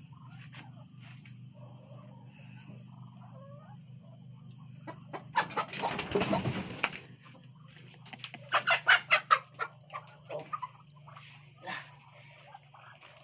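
A chicken woken on its roost and grabbed, squawking in alarm: a loud, noisy flurry of flapping and squawks about halfway through, then a quick run of loud squawks.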